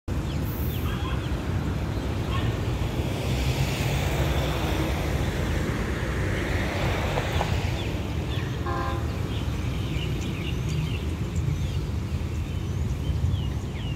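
Road traffic beside the tracks: a steady low rumble, with a vehicle passing that swells and fades between about three and eight seconds in. A short toot comes about halfway through, with scattered bird chirps.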